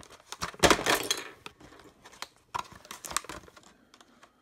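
Clear plastic clamshell retail packaging crackling and crinkling as it is handled and turned over, in two louder bouts, about a second in and again near three seconds.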